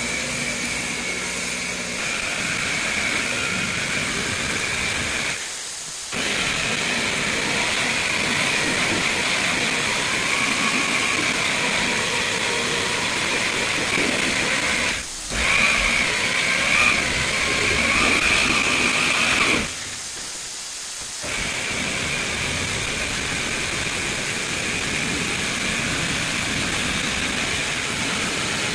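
Power buffer running on a truck hood's paint with a steady high motor whine, its pitch wavering under load. It cuts out briefly three times.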